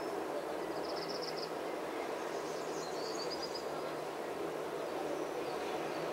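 Steady outdoor background noise, with two short runs of high, rapid chirping: one about a second in, another about three seconds in.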